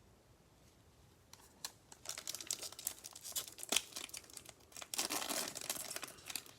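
Wrapper of a Prizm basketball trading-card pack being torn open and crinkled. It starts about two seconds in as irregular crackling with sharp snaps.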